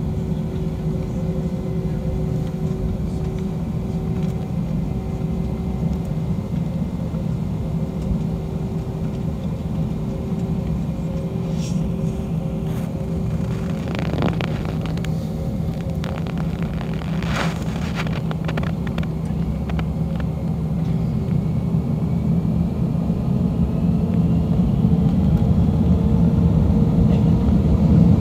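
Airbus A321 jet engines heard from inside the cabin at taxi: a steady low rumble with a few brief knocks midway. Over the last several seconds a whine rises in pitch and the rumble grows louder as the engines spool up to takeoff thrust.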